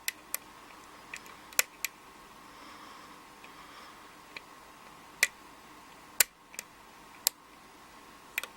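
Sharp, irregular metal clicks of a lock pick probing and lifting the pins of a Schlage 5-pin pin-tumbler cylinder, about a dozen clicks scattered across several seconds.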